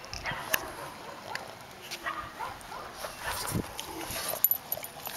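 Boston terriers on leashes making short, scattered dog sounds, small whines and vocal noises, with a few light clicks between them.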